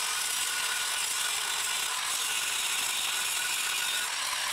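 Angle grinder grinding off the stub of an old steel bolt in a cast iron post, a steady loud grinding hiss with a faint motor whine.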